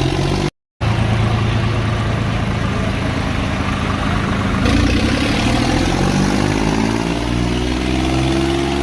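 John Deere tractor's diesel engine running steadily under load, its revs climbing gradually over the last few seconds. The sound cuts out completely for a moment about half a second in.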